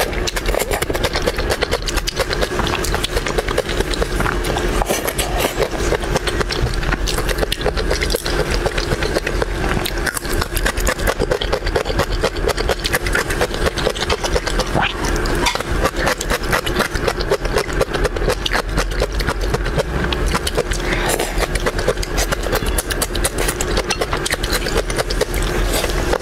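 Close-miked eating of crab and shrimp: a continuous rapid stream of chewing and shell-cracking clicks, over a steady low hum.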